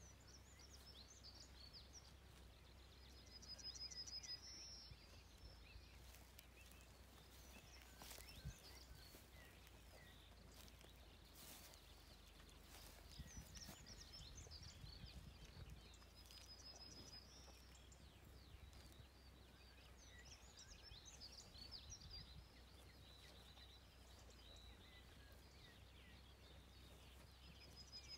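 Faint open-air ambience of small songbirds chirping throughout, with a short high trill three times, over a steady low rumble.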